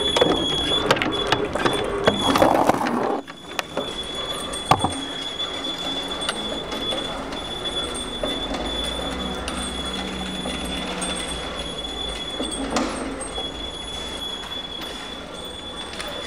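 Metal grinding and scraping from the machinery of a self-demolishing kinetic sculpture (circular saw blade, ring gear, rods on a wooden base), over a steady high-pitched squeal. Loud clattering knocks fill the first three seconds, then it settles to a steadier grind with one sharp knock.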